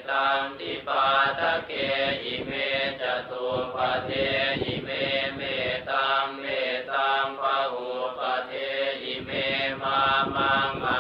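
Buddhist chanting in Pali: voices reciting in a steady, rhythmic monotone, in short phrases that follow one after another.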